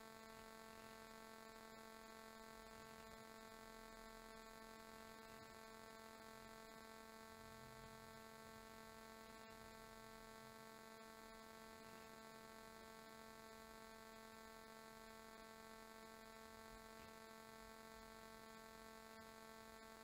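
Near silence: a faint, steady electrical hum made of several even tones, with no change throughout.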